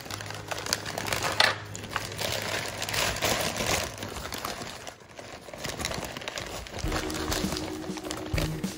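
Paper wrapping crinkling and rustling as it is peeled open by hand from around a cooked brisket.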